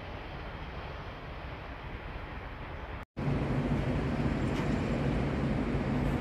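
Steady rolling noise of a shopping trolley pulled across a concrete car-park floor. After a sudden cut about three seconds in, it gives way to a louder, steady city traffic rumble with a low hum.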